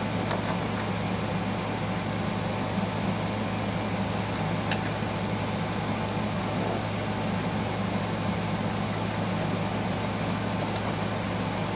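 Steady mechanical hum with an even hiss, like a running fan, and two faint small clicks, one about halfway through and one near the end.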